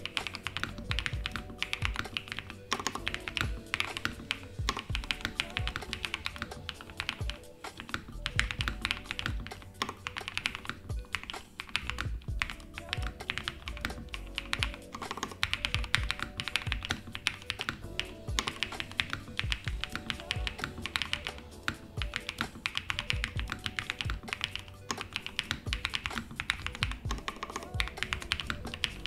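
Fast continuous typing on an AbelX EVA-08 mechanical keyboard with lubed JWK Peach Bloom switches in a polycarbonate half plate, Poron bottom foam and CRP R4 keycaps: a dense, uneven stream of key clacks. Background music plays along with it.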